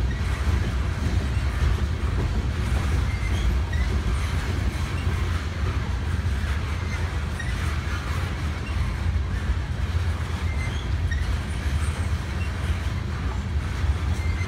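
Tank cars of a freight oil train rolling past: a steady low rumble of steel wheels on rail.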